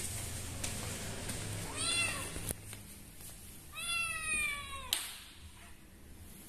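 Young kitten meowing twice: a short meow that rises and falls about two seconds in, then a longer, louder meow about four seconds in.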